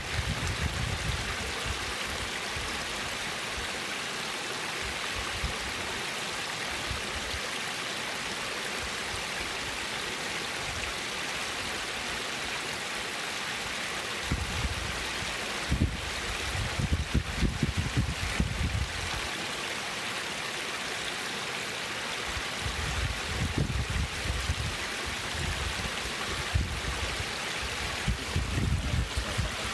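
Creek water spilling over a low rock ledge in a small cascade: a steady, even rushing and trickling. Low rumbles come and go several times over it.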